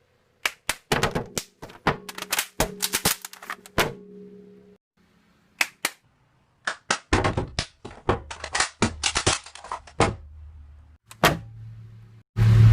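A cup tapped and knocked on a hard surface, giving quick clusters of sharp clicks and thunks, with a steady low hum under the first few seconds. From about seven seconds a deeper hum runs under the taps, and a louder, denser run of knocks starts near the end.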